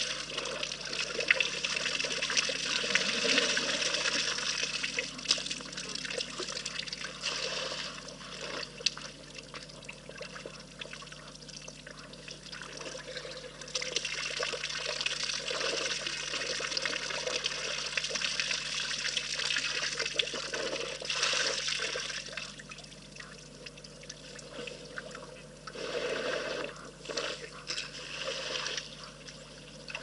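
African elephant drinking: water trickling and splashing as it pours from the trunk into the mouth and spills back into the pool. The sound comes in several spells of a few seconds with quieter gaps between.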